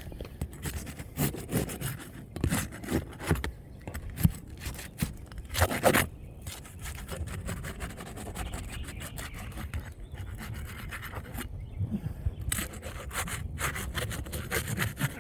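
A roof snake and roofer's hatchet scraping and rubbing against asphalt shingles in irregular strokes as the shingles are worked loose to get at their nails, with a few louder knocks about four and six seconds in.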